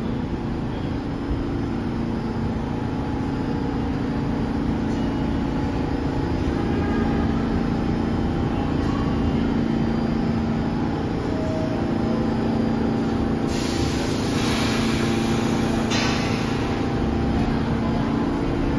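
R46 subway train standing at the platform, its equipment giving a steady hum with a low drone. A little past the middle comes a hiss of air lasting about two and a half seconds, which cuts off sharply.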